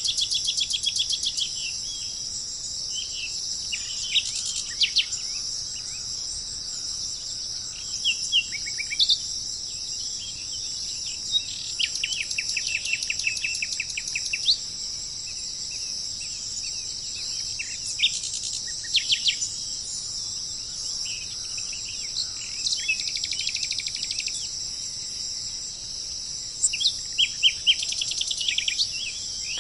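A steady, high-pitched insect chorus with wild birds calling over it in short repeated chirps and quick trills, including one longer fast trill about midway.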